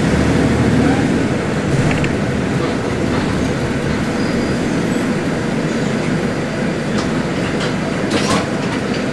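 Diesel engine of a Mercedes-Benz OF-1721L city bus running loud, a steady low drone, with a few sharp rattles and clicks from the body about two seconds in and again near the end.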